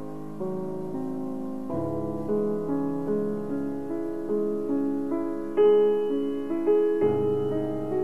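Solo piano music: a slow piece of single notes in an even, flowing pattern over held bass notes, the bass changing twice.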